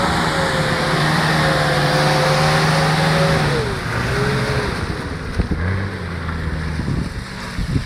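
Nissan Patrol Y60 engine held at high revs as it drives its tyres through deep mud, under a noisy spray of mud and tyre sound. The revs drop about three and a half seconds in, rise again more gently, and a few sharp knocks come near the end.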